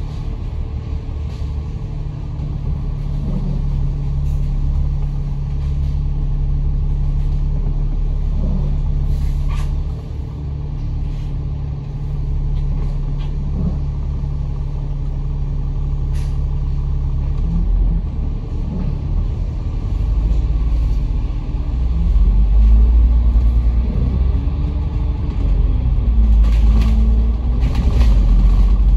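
Inside a moving KMB bus: steady engine and road noise while driving. Later on, the engine note rises and falls a few times as the bus speeds up and slows, with a few short clicks and rattles.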